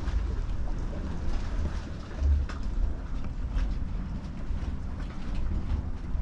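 Dragon's Mouth Spring rumbling: steam and gases surge through the water in its hidden cave and make it crash against the cavern walls. A steady low rumble runs throughout, with scattered splashes and sloshes on top.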